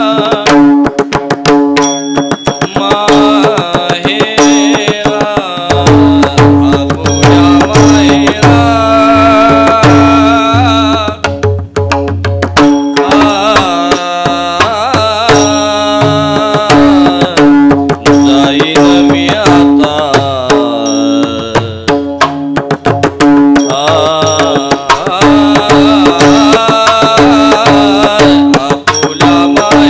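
Indian devotional abhang music: a melody wavering over a steady held drone, with rapid metallic clicks keeping time. Low hand-drum strokes join about six seconds in.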